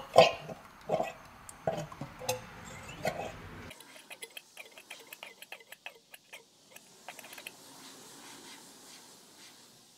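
Yamaha TMAX 500 front fork leg being pumped upside down over a plastic beaker to force out the old fork oil: a few irregular knocks and short squelches in the first few seconds, then faint scattered clicks that die away after about seven seconds.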